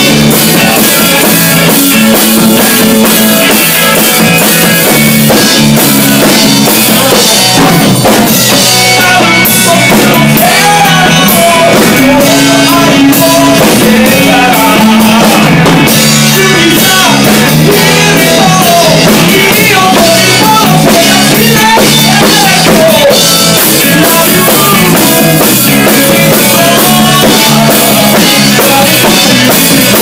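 Live rock band playing loud: electric guitars over a full drum kit, with a male lead singer.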